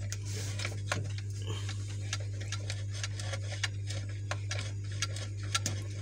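Small irregular clicks and scrapes as an incandescent bulb's E14 screw base is turned by hand into a fridge's plastic lamp holder, over a steady low hum.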